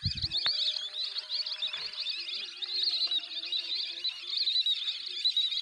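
A dense, continuous chorus of high, wavering chirping calls, with a faint lower wavering tone in the middle.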